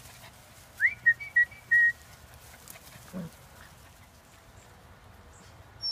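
A quick rising whistled note and then three short steady ones at the same pitch, about a second in. A brief, faint low falling sound follows a little past the middle.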